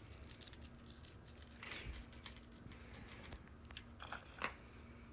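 Faint clicks and scratchy rustles of a fidget toy being handled, with a brief rustle about two seconds in and a sharper click about four and a half seconds in.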